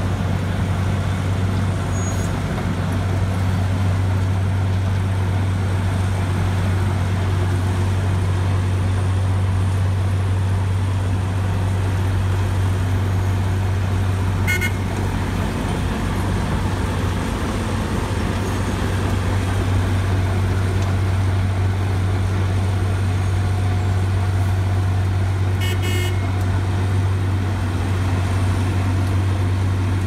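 Asphalt cold milling machine running steadily as it grinds off the old road surface and conveys the millings into a dump truck, with a constant low drone from its diesel engine. Two brief sharp rattles stand out, one about halfway through and one near the end.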